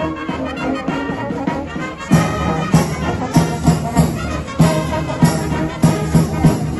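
Brass band playing, growing louder about two seconds in with a steady beat of accented notes.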